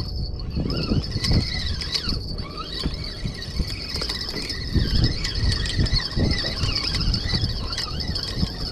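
Spinning reel being cranked to reel in a hooked fish: a high gear whine that wavers up and down in pitch as the handle turns.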